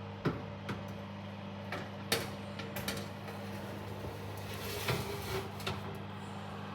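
A steady low mechanical hum with scattered sharp clicks and knocks over it.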